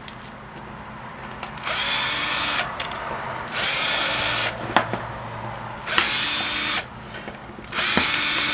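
Power drill run in four short bursts of about a second each, backing out the screws that hold a plastic power strip's back cover on.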